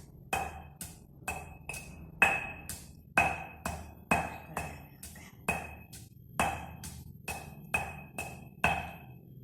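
Knife chopping on a cutting board, a steady run of sharp knocks about two a second, each with a short metallic ring.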